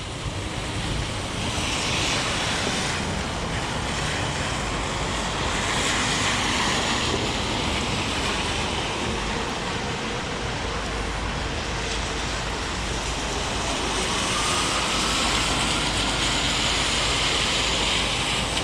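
Heavy rain falling with traffic going by on the wet street, the hiss of tyres on wet pavement swelling and fading as cars pass.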